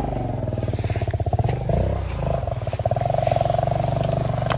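Motorcycle engine running at idle, a steady rapid pulsing, with a brief swell in the engine note about two seconds in.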